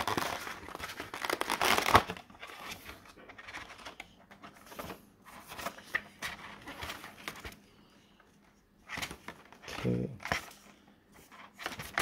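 Clear plastic clamshell packaging being handled and turned over, crinkling and crackling. It is loudest in the first two seconds, then thins to scattered clicks and rustles.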